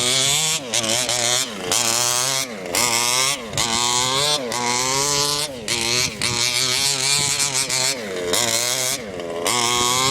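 Two-stroke petrol engine of an FG large-scale RC car revved in quick throttle blips, about one a second, the pitch climbing and dropping back each time. The carburettor is set on the rich side.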